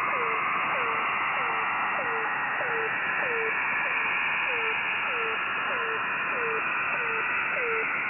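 The Air Horn, a Russian military shortwave channel marker on 4930 kHz, received in USB on a web SDR: a short falling tone repeats about every 0.6 seconds under a steady hiss of band noise.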